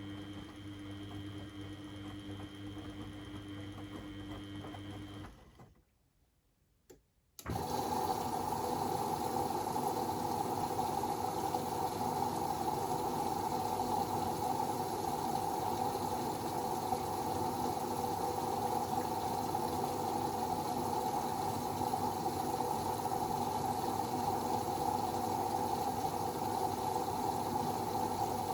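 Beko WMD 46160 washing machine running: a steady hum for about five seconds, a short break, then about seven seconds in a louder, steady rushing sound sets in abruptly and holds.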